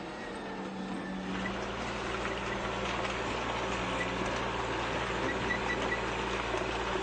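Steady motor hum with a haze of noise, like a running engine or machinery, growing slightly louder about a second in.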